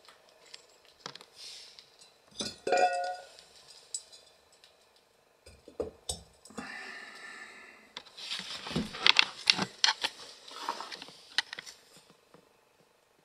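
Scattered clinks and knocks of terracotta flowerpots and glass pieces being handled on a metal tray, with a short ringing clink about two and a half seconds in and a busier run of clicks near the end.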